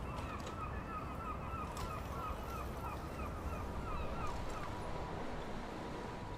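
A bird calling in a fast run of short, repeated notes, several a second, fading out about two-thirds of the way through, over a steady low rumble.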